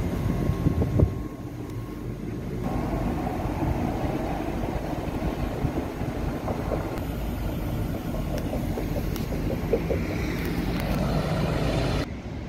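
Electric tram running close by at the platform, a steady mechanical noise, with a faint rising motor whine near the end.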